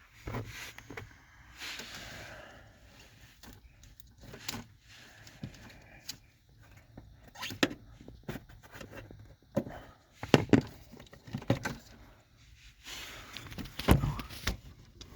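Irregular clicks, knocks and rustling of hands working the old hood latch cable and its rubber boot loose from the firewall, with a few sharper knocks about ten and fourteen seconds in.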